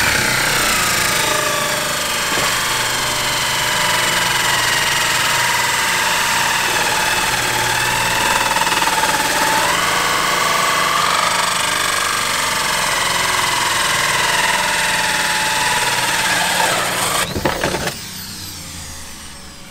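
Corded electric drill running a 3¼-inch hole saw, cutting a hole through a fiberglass boat deck: a steady motor whine with grinding, its pitch wavering under load. It stops near the end, once the hole is cut through.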